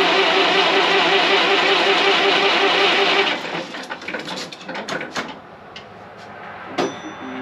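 1927 White dump truck's flathead engine being turned over on its starter for a first start attempt after sitting for years: a loud steady grinding with a fast even pulse that stops suddenly about three seconds in. Scattered clicks and knocks follow.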